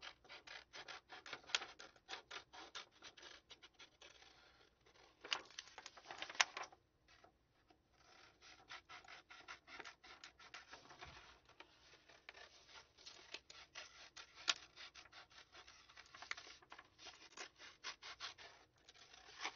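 Scissors cutting a sheet of green paper: a rapid run of short snips and paper rustle, pausing briefly about seven seconds in before the cutting resumes.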